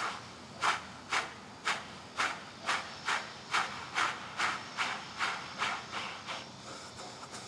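Ffestiniog Railway narrow-gauge steam locomotive Prince working, its exhaust beating in a steady chuff a little over twice a second, quickening slightly and fading in the last second or so. Heard through a TV's speakers.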